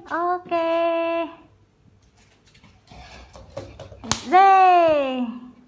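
A young child's wordless voice, two short held high-pitched sounds, then a few light taps and a sharp hand slap about four seconds in, followed at once by a long loud vocal "ooh" that falls in pitch.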